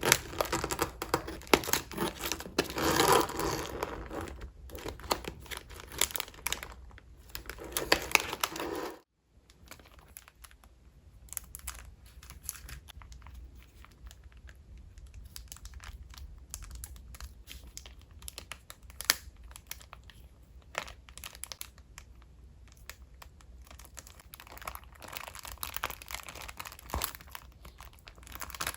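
Paper and plastic wrapping crinkling and rustling as a package of paper goods is unwrapped by hand. After a short silence about nine seconds in, quieter scattered ticks and light rustles of paper and stickers being handled follow, growing busier again near the end.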